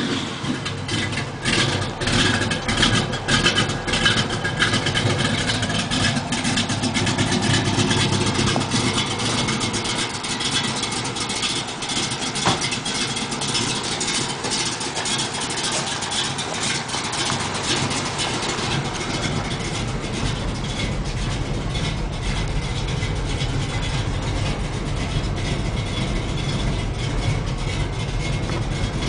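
1967 Chevrolet Chevelle's engine running right after starting, uneven for the first several seconds, then settling into a steady idle through its side-exit exhaust.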